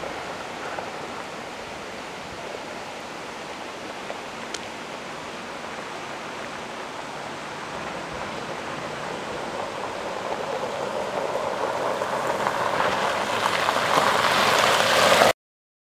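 Mercedes GLE SUV coming closer over a loose gravel track: the crunch and rush of its tyres on gravel grows steadily louder over the last several seconds. It comes over a steady rushing background and cuts off suddenly near the end.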